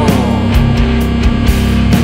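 Rock music with drums and guitar, an instrumental stretch between sung lines.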